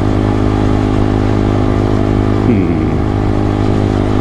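Honda Grom's 125cc single-cylinder engine running at a steady cruise, heard through a helmet-mounted microphone.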